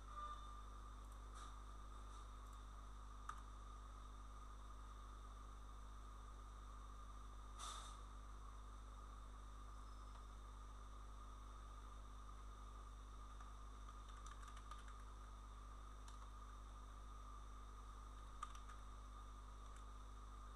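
Near silence: a steady electrical hum and hiss from the recording setup, with a few faint, scattered clicks from a computer keyboard and mouse.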